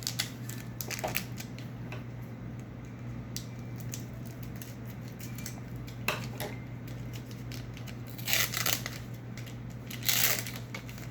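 Pokémon trading cards and pack packaging being handled: light clicks and rustles, with two louder scraping rustles near the end, over a steady low hum.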